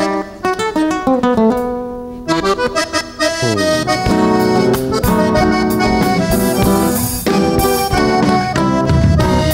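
Live band playing an instrumental milonga intro, accordion leading over acoustic guitar. About four seconds in the bass and drum kit come in, with cymbals, and the sound fills out.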